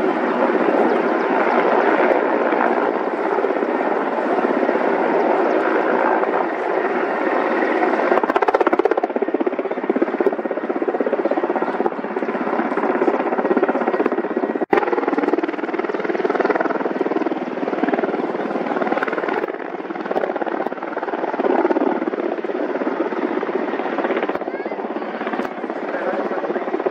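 Mil Mi-24 and Mil Mi-17 military helicopters flying by together, their rotors and twin turboshaft engines making a loud, steady noise, with a momentary break in the sound about halfway through.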